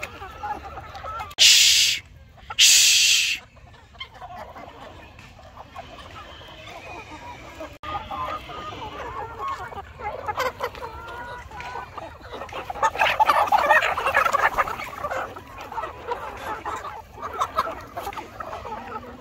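A large flock of feeding hens clucking and squawking together, the clucking swelling in the middle. Near the start, two short, loud bursts of noise cut over it.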